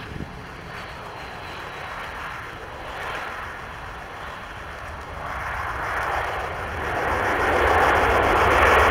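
Jet engines of a Boeing 737 airliner during touchdown and rollout: a steady rushing roar over a low rumble. It swells from about five seconds in and is loudest near the end.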